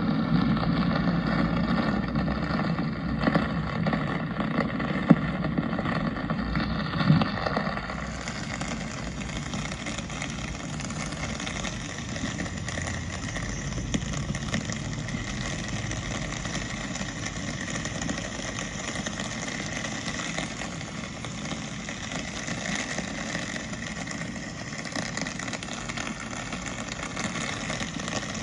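Wet city street ambience: a vehicle engine runs close by for the first eight seconds or so, with a few clicks, then gives way to a steady hiss of rain and traffic.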